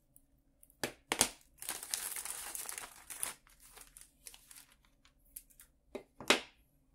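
Clear plastic bag crinkling as it is handled, with several sharp clicks and knocks of small objects being put down on a wooden table; the loudest knock comes near the end.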